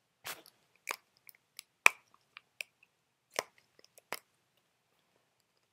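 Toy slime being squeezed and worked in the hands: a series of short, sharp squishy clicks and pops at irregular intervals, the loudest about two seconds in.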